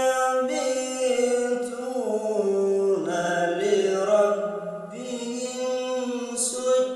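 A man reciting the Quran in melodic chanted style, holding long drawn-out vowels that step and glide between pitches.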